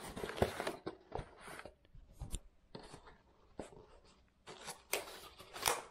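Cardboard box flaps being opened and handled, with scattered short rustles, scrapes and taps of cardboard and paper, busier near the end.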